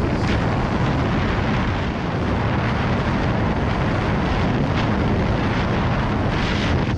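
Sea-Doo GTX 155 jet ski running at speed over choppy water, with heavy wind noise on the microphone and water rushing past. The sound is a loud, steady rush with no distinct engine note standing out.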